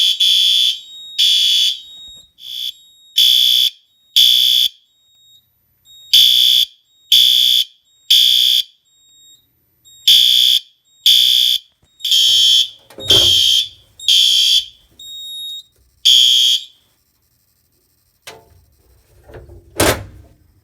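System Sensor SpectrAlert Advance P2R horn sounding a fire alarm at low volume in the temporal code-3 pattern: groups of three short horn blasts with a pause between each group. The horn stops about three-quarters of the way through, and a couple of knocks follow near the end.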